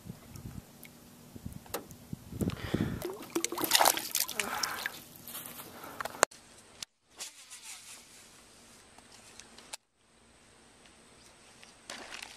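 Knocking, rustling and splashing as a landed bass is handled and let go into the water beside a boat, loudest in the first half. After that there is a quieter outdoor hush over the water that cuts out to silence twice.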